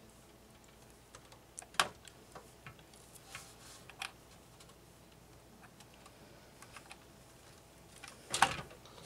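Scattered light clicks and knocks of a graphics card being handled and pushed into its slot in a computer case. There is a sharper knock about two seconds in and the loudest clatter near the end.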